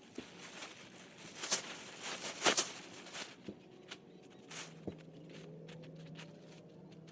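Rustling, scrapes and scattered sharp clicks of tent gear being handled during setup, the sharpest clicks about one and a half and two and a half seconds in. A faint low steady hum comes in about halfway through.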